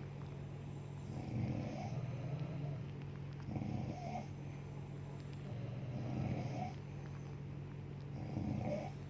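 A woman snoring in her sleep: four snores, one roughly every two and a half seconds.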